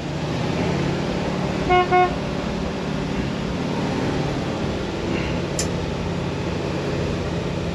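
Old Ford F900 fire truck's gasoline engine idling steadily, heard from inside the cab, with two short horn toots about two seconds in.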